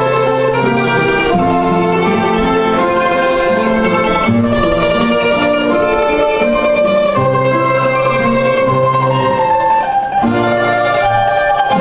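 Ensemble of bowl-back mandolins with guitar playing a melody in held notes over a line of lower accompanying notes.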